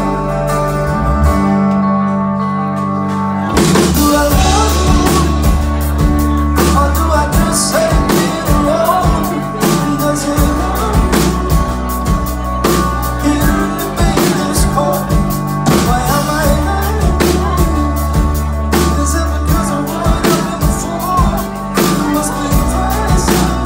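Live pop-rock band playing with a male lead singer, electric and acoustic guitars, bass and drums. The first few seconds are held chords without drums, and the full drum beat and bass come in about three and a half seconds in.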